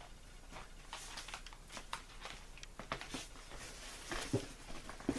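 Prizes and their packaging being handled: scattered rustles and light clicks, with a couple of louder knocks near the end.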